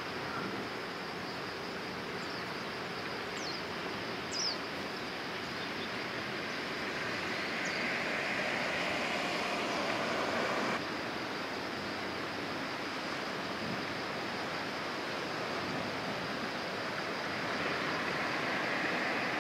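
Steady waterside background noise, an even rushing hiss without clear tones, with a few brief high chirps about four seconds in. The sound changes abruptly about eleven seconds in.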